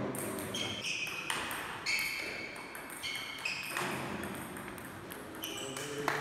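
Table tennis rally: the ball clicking sharply off the bats and the table, with short high squeaks from the players' shoes on the hall floor.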